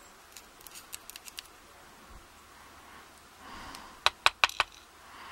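Small metal clicks of steel tweezers picking pins out of a brass lock plug, then four sharp ticks in quick succession about four seconds in as the tweezers and pins tap onto a wooden pin tray.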